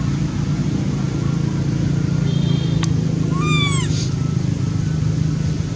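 A macaque gives one short coo call, its pitch arching and falling, about three and a half seconds in, just after a single sharp click. A steady low rumble runs underneath.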